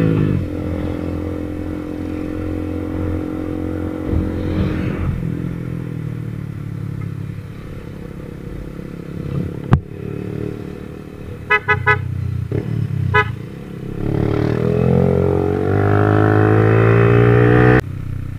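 150cc motorcycle engine running under way, its pitch rising and falling with the throttle. A horn gives a few short beeps about two-thirds of the way through, and the engine revs up again near the end before stopping abruptly.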